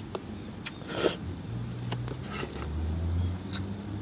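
A man eating with his hands: scattered small clicks of chewing and lip smacks, with one brief louder rush about a second in, over a steady high drone of insects. A low hum comes in about a second and a half in.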